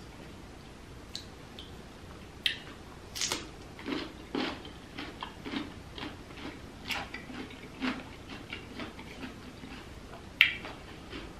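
Close-up chewing of king crab and prawn meat: irregular wet mouth sounds, several a second, in the middle stretch. A few sharp clicks come with them, the loudest one near the end.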